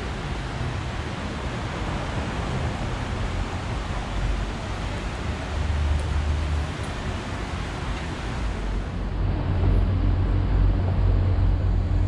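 Outdoor city ambience of a shallow river flowing over stones, mixed with road traffic, as a steady rushing noise. About nine seconds in it gives way to a louder low engine rumble with a steady hum, typical of a bus or other large vehicle.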